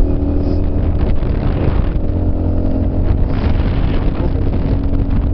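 200cc motorcycle engine running at a steady speed, heard from the pillion seat, with an even pitch and no revving.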